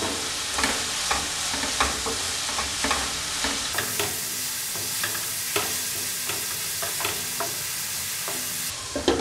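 Wooden spatula stirring finely chopped raw papaya in a hot non-stick pan over a steady sizzle, with frequent light scrapes and taps of the spatula against the pan.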